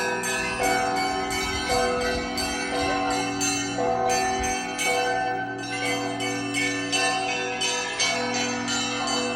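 Russian Orthodox church bells of the Trinity-Sergius Lavra ringing a festal peal: small bells struck rapidly, about four strikes a second, over the sustained hum of larger bells.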